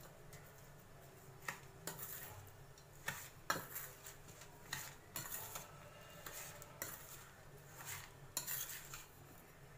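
Steel spoon scraping and clinking against a stainless steel bowl as a crumbly mawa (khoya) mixture is stirred and mashed, in irregular scrapes and taps, the sharpest clink about three and a half seconds in.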